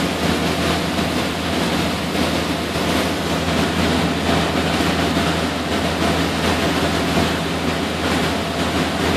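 A boat's engine droning steadily under a constant rush of wind and water as the boat moves along.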